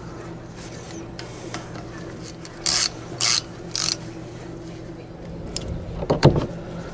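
A hand ratchet wrench clicking in three short strokes about half a second apart, tightening a bolt at the truck's front hub, over a steady low hum. A brief clatter near the end.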